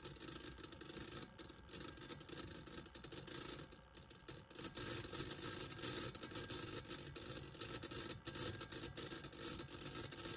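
Magnetic stirrer spinning a stir bar in the bottom of a tall glass of water, a fast, irregular rattling as the bar knocks against the glass, easing off briefly about four seconds in.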